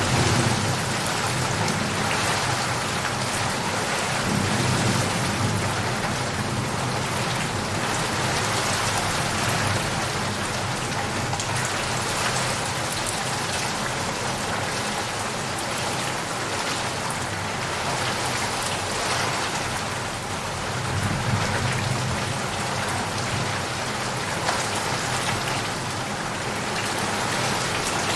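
Steady, dense rainfall, with low rumbles of thunder swelling up three times: near the start, about five seconds in, and about twenty seconds in.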